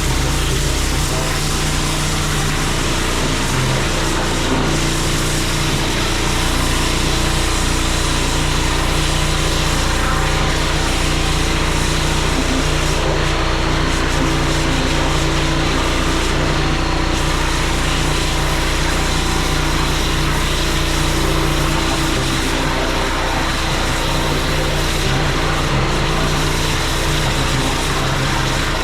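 Pressure washer's small engine running steadily, with the constant hiss of the high-pressure water jet cleaning paving.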